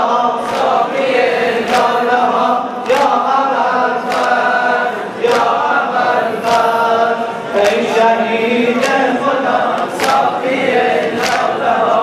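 Men chanting a Shia mourning lament (noha) in unison, led over a microphone. Hands slap chests together in a steady beat about once a second.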